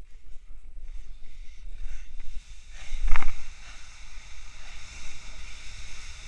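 Board sliding fast down a sand dune, the sand hissing under it, with wind rumbling on the head-mounted camera's microphone. A brief sharp burst about three seconds in is the loudest sound.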